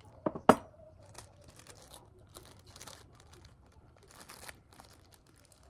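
Two sharp knocks in the first half second, then soft crinkling and rustling that comes and goes, from material being handled while cupcakes are decorated.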